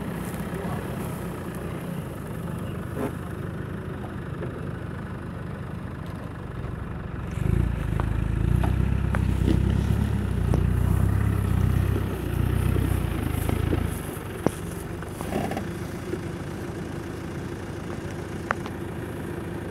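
A Land Rover Discovery's engine idles, then works harder under load for about six seconds in the middle as the 4x4 crawls over rough forest ground, and settles back to idle. Two short sharp clicks come near the end.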